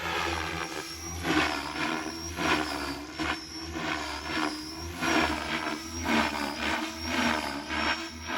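Beam Archon 500 electric RC helicopter's main rotor blades and motor during 3D aerobatics, the blade noise swelling and dropping in repeated surges about once a second as the pitch changes through the maneuvers.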